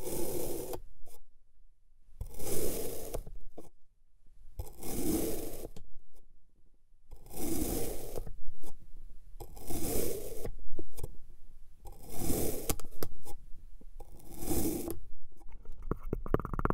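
White plastic knife slicing through packed purple kinetic sand: seven slow cuts, one about every two and a half seconds, each a gritty scrape lasting under a second with quiet gaps between.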